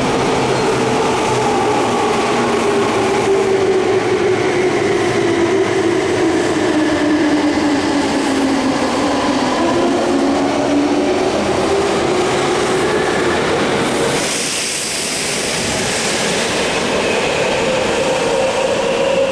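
Meitetsu 100 series electric train running through an underground station platform: a steady rumble of wheels and running gear with a motor whine that glides down over the first half and then climbs again. There is a short burst of hiss about two-thirds of the way through.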